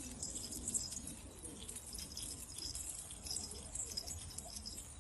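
Domestic pigeons faintly cooing, with light scratching and small ticks.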